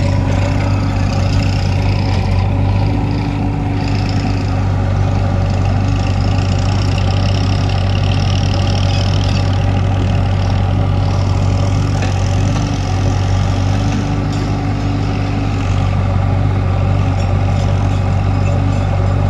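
Heavy diesel engine running steadily at a constant speed, with a higher whine that swells and fades several times over it.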